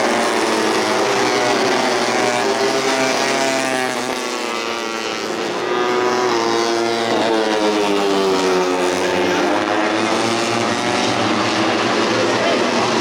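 Several tuned 150cc four-stroke underbone race motorcycles running at high revs, their engine notes rising and falling as they accelerate, shift and brake through the corners. They fade a little about four seconds in, then come back up loud.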